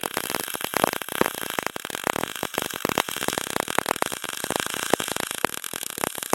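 Welding arc crackling and hissing steadily while tack-welding an aluminum cross member in place.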